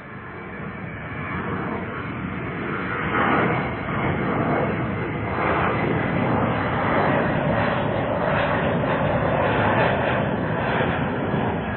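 Airplane engine noise growing louder over the first few seconds, then holding as a steady loud rush.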